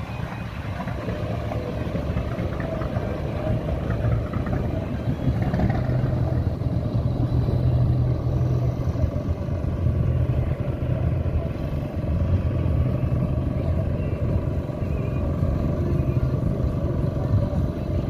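An engine running steadily; it grows louder over the first few seconds and then holds at a steady level.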